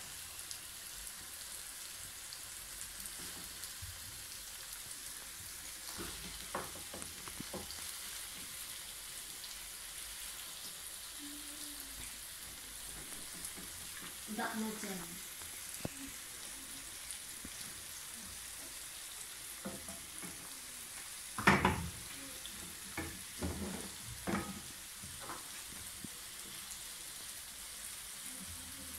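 Chicken sizzling in a double-sided Happy Call pan, a steady frying hiss. A few sharp knocks and clicks break through it, the loudest about three quarters of the way through.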